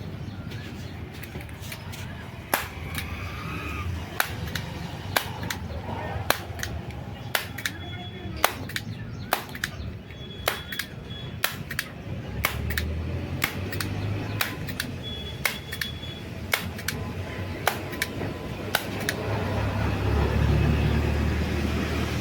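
Sharp, irregular metal clicks and knocks of hand tools at work on a motorcycle, some with a brief ring. A low rumble swells twice, the second time near the end.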